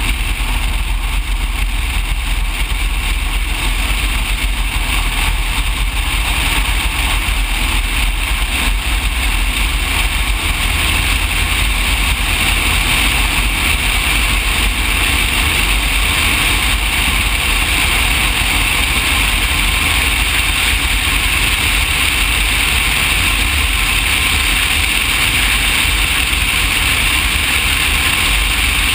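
Cessna 180 floatplane's piston engine and propeller running steadily: an even, loud noise with a low hum beneath and a strong hiss, holding constant with no change in power.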